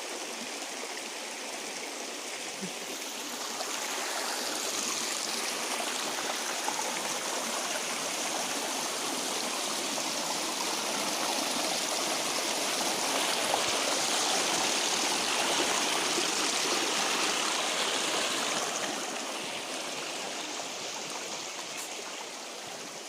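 Steady rush of water running over rocks in a stream below a waterfall. It grows louder after about four seconds and eases a little near the end.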